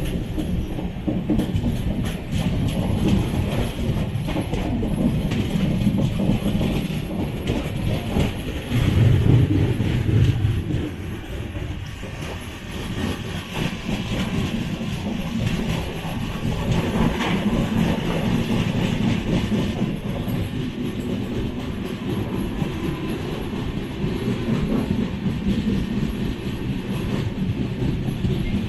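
Sleeper-class passenger coach running along the track: a steady rumble with the clatter of wheels over rail joints, briefly louder about nine seconds in.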